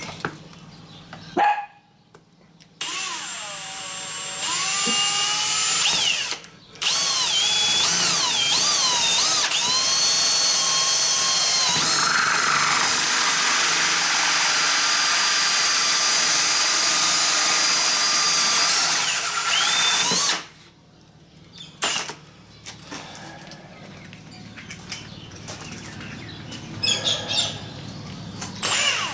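Power drill turning a bent hole saw, cutting a hole in the motorcycle's fairing. The motor whine rises and falls in pitch, with a brief stop about six seconds in. It stops about twenty seconds in, and quieter clicks and handling noises follow.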